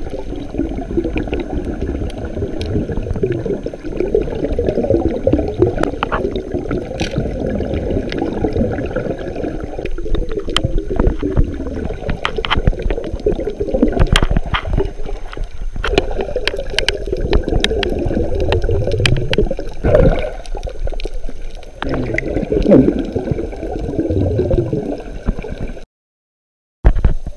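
Muffled underwater water noise heard through a submerged camera's waterproof housing: continuous low sloshing and gurgling, with many scattered sharp clicks. The sound cuts out for about a second near the end, then resumes.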